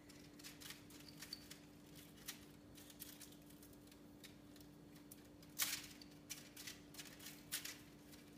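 Faint, irregular scratches and clicks as a Sphynx kitten paws and shifts about on a hard ledge, the loudest about two thirds of the way through. A steady hum runs underneath.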